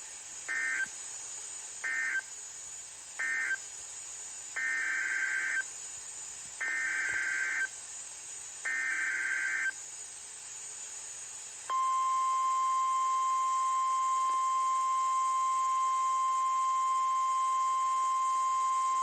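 NOAA Weather Radio Emergency Alert System signalling. First come three short warbling SAME data bursts, the end-of-message code closing one tornado warning. Then come three longer one-second SAME header bursts about two seconds apart, which encode the next tornado warning. About twelve seconds in, the steady single-pitch Weather Radio warning alarm tone starts and holds.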